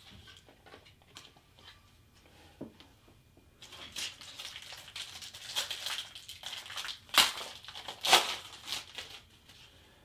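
Trading-card pack wrapper crinkling and tearing as it is opened by hand, with a few light clicks of card handling first, then a run of crackles that peaks in two sharp louder crinkles near the end.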